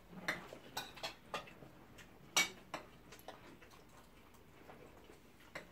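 Metal spoons clinking and tapping on plates and serving dishes while food is served and eaten: scattered light clicks at irregular spacing, the loudest about two and a half seconds in.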